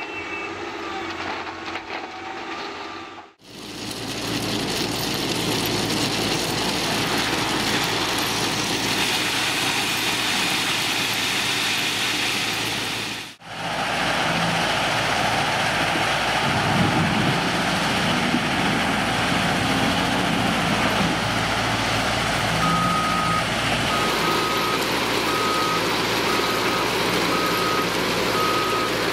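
Caterpillar 950M wheel loader's diesel engine and a gravel screening plant running together in a steady, dense machinery din. From about two-thirds of the way through, the loader's reverse alarm beeps steadily, about once a second, as it backs up.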